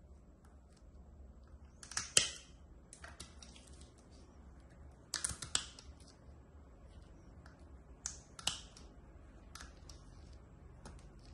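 Metal tin snips cutting through a stiff, crusted cloth wrapping: sharp clips, mostly in pairs, about two, five and eight seconds in, with lighter clicks between.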